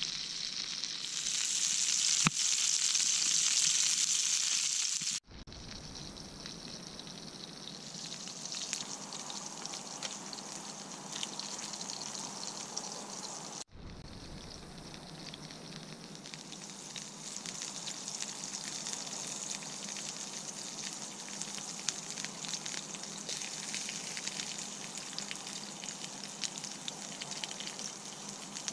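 Onion rings and a patty frying in a pan over a campfire: a loud, steady sizzle. After about five seconds the sizzle is quieter, with small crackles.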